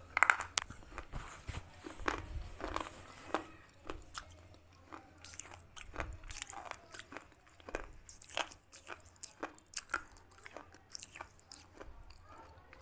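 A person biting and chewing something crunchy close to the microphone: a run of sharp, irregular crunches, loudest in the first second, then quieter chewing.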